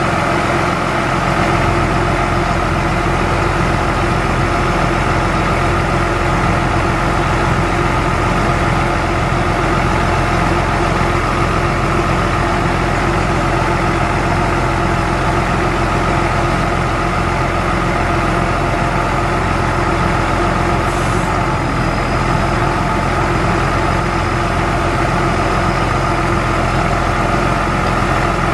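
Engine of a 1999 Ford F-Series mechanics truck running steadily to power the National N80 hydraulic crane while the boom is moved. About three-quarters of the way through there is a brief high hiss, then a faint high whine.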